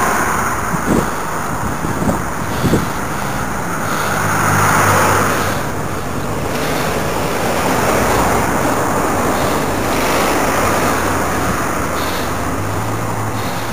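Road traffic heard from a moving bicycle: cars driving just ahead, their engine hum swelling and fading, over a steady rush of wind and road noise on the camera microphone.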